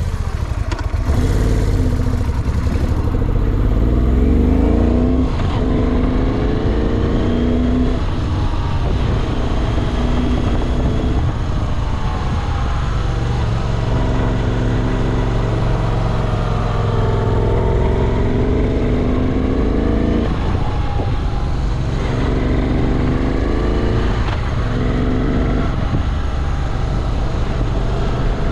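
Moto Guzzi V7 Classic's air-cooled transverse V-twin running under way, its note repeatedly rising under throttle and falling off every few seconds.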